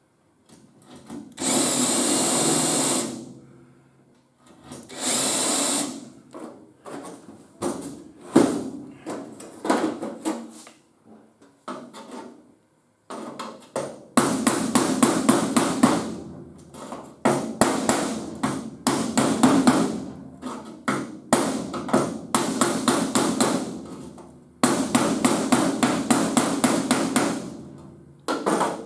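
Power tools working car-body sheet metal. There are two short steady runs in the first few seconds, then, from about halfway, long spells of rapid repeated strokes in a fast chatter that stop and start.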